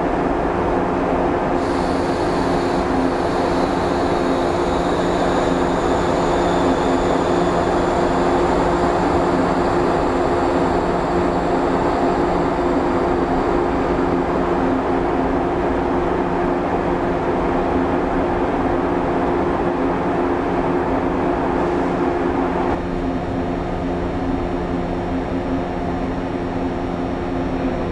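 Steady running hum of a Shinano Railway 115-series electric train, with several steady low tones and a faint high whine that slowly falls in pitch during the first half. The sound eases slightly about 23 seconds in.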